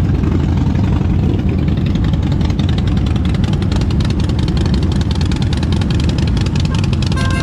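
Motorcycle engine running steadily, a low rumble that takes on an even, rapid pulse from about two seconds in.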